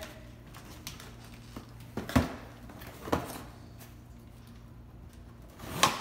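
A cardboard box being handled and opened on a hardwood floor: a few scattered sharp taps and knocks, the sharpest about two seconds in and just before the end, over a faint steady low hum.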